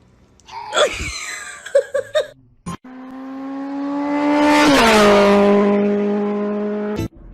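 A motor vehicle passing close by: its engine note grows louder, drops in pitch as it goes past at its loudest, then holds lower until it cuts off suddenly.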